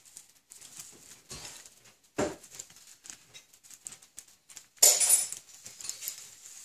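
A caique playing among hanging plastic bird toys, rings and chains knocking and rattling in scattered clicks, with a heavier thump about two seconds in and a brief louder clatter just before five seconds.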